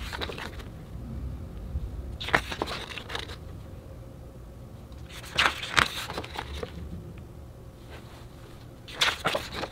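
Glossy pages of a large photobook being turned by hand: three crisp rustling flips of paper, about three seconds apart.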